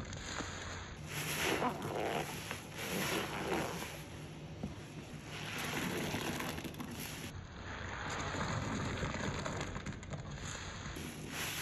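Bleach water splashing and sloshing in uneven swells every second or two.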